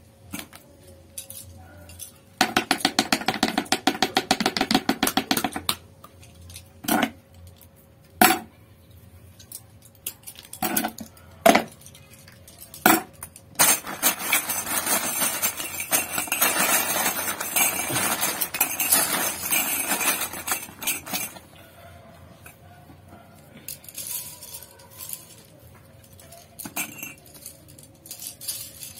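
Small metal brush ferrules and hand tools clinking and tapping on a wooden workbench during hand assembly of flat artist brushes. There is a burst of rapid, even tapping early on, then a few single sharp clicks, then a longer stretch of dense rattling and rustling in the middle.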